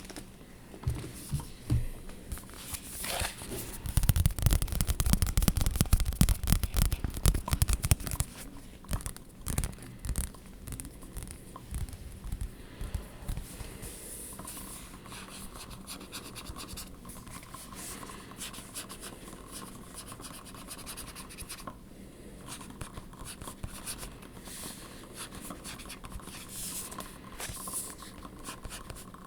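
Close-miked ASMR scratching and tapping on objects: rapid, dense scratching strokes that are loudest about four to eight seconds in, then lighter scratching with scattered taps.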